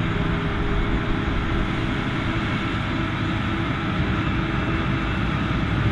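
Claas Jaguar 850 forage harvester running under load as it chops standing corn for silage: a steady, dense mechanical din of engine and cutting gear.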